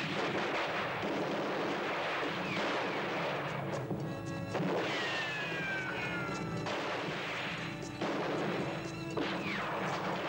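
Gunfire from rifles in a mounted battle: many short shots and crashes over dramatic music, with long falling whistle-like tones in the middle and again near the end.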